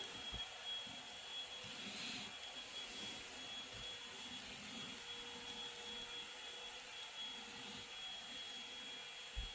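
Quiet steady background hum and hiss with a faint high-pitched whine, and a soft knock just after the start and another near the end.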